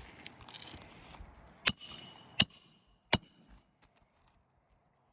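Hammer striking steel to drive a roofing nail into an asphalt shingle roof: three sharp metallic strikes about 0.7 s apart, each ringing briefly.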